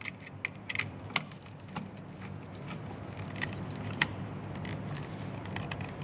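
Screwdriver tightening the silver terminal screw of a GFCI outlet down on the white neutral wire. Small sharp metallic clicks and scrapes, thickest in the first two seconds, then a few more scattered clicks.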